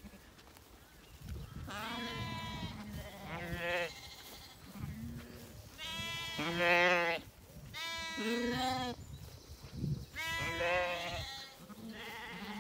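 Zwartbles lambs bleating, a run of calls every second or two, some overlapping, several with a wavering pitch.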